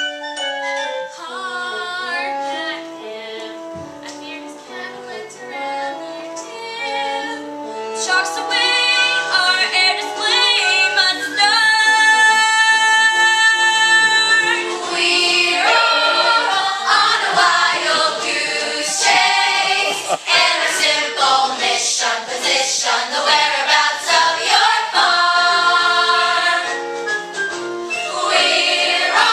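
Musical-theatre song sung by a group of female voices with instrumental accompaniment. It is softer at first, grows louder about eight seconds in, and holds one long sustained chord for a couple of seconds near the middle.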